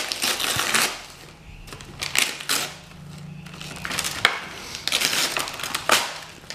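Tissue paper rustling and crinkling in irregular bursts as it is pulled out of a present and crumpled by hand.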